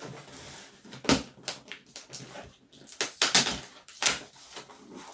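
Rummaging through the packaging of a box of parts: irregular crinkling and rustling, with sharp knocks about a second in and again around three to four seconds in.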